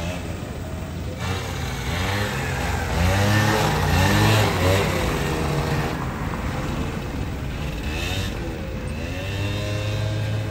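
Small single-cylinder engine of a vehicle being ridden, its pitch rising and falling several times as the throttle is opened and closed, loudest a few seconds in.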